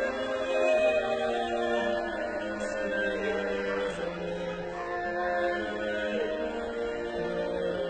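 Slow sung music with long held notes, like a solemn chant or hymn.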